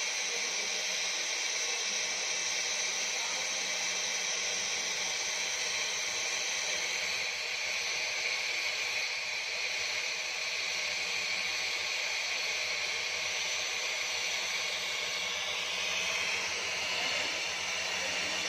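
Steady hiss of steam escaping from a steam-operated khoya (mawa) making machine, with a faint steady low hum underneath.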